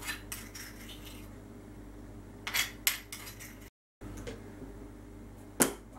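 A spoon scraping and tapping against a stone mortar as ground peppercorns are knocked out into a glass jar, with light clinks and a louder clatter about two and a half seconds in. The sound cuts out briefly just before four seconds, and a single sharp knock follows near the end.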